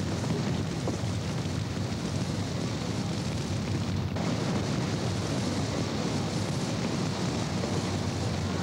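Steady rushing rumble of a lava flow and burning buildings, with a brief break in the sound about four seconds in.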